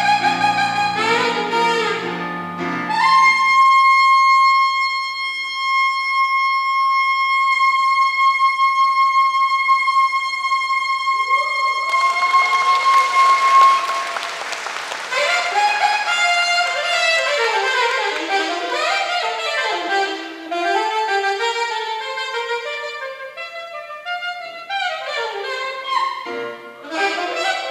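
Saxophone playing a live solo over piano accompaniment: fast runs, then one very high note held for about ten seconds. Audience applause breaks out near the end of the held note, and the saxophone goes on into quick runs and falling phrases.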